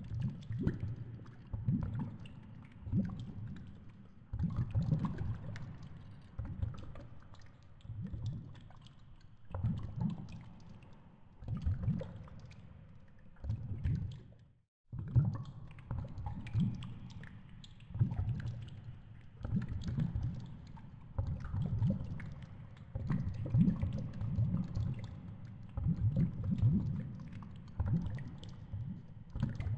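Underwater water noise picked up by a GoPro in its housing on a live-bait fishing rig: irregular low surges of sloshing rumble every second or two, with faint ticks over them. It cuts out briefly about halfway through.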